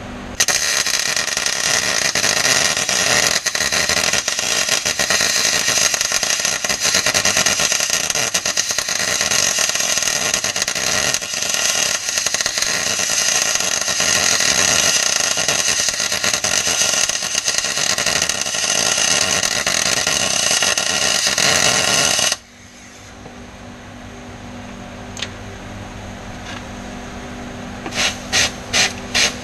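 Welder arc crackling steadily for about 22 seconds while steel anti-roll bar mounting tabs are welded onto the rear axle housing, then cutting off abruptly. A low hum remains, with a few short rasping strokes near the end.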